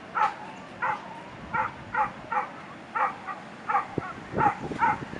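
An animal giving a quick series of short, sharp calls, about two or three a second, with a few brief gaps between groups.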